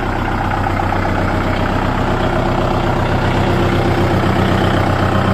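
Kubota MU 4501 tractor's 2434 cc diesel engine running steadily at idle.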